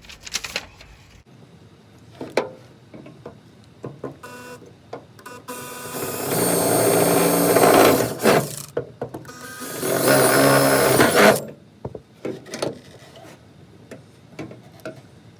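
Power drill running in two spells of a few seconds each, driving fasteners in to mount a swing-case toolbox, with scattered clicks and knocks of parts being handled between them.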